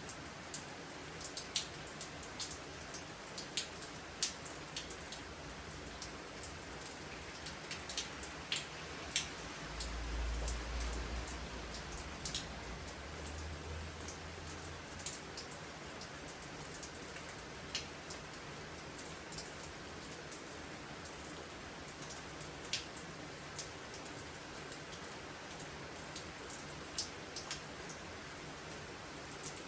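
Steady rain falling through the night, with frequent sharp ticks of drops striking a nearby surface. A low rumble sits under it from about ten to fifteen seconds in.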